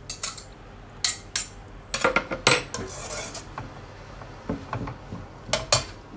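Wooden spatula knocking and scraping against a metal wok while tossing stir-fried vegetable and glass-noodle filling. The strokes come irregularly, with a busy run of scraping about two seconds in and a few more knocks near the end.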